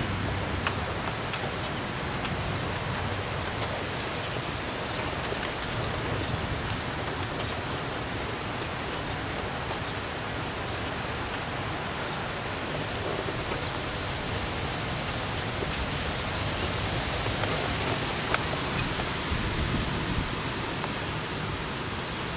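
Steady rain falling in a thunderstorm, an even hiss with scattered sharp drop clicks, growing a little louder in the last several seconds.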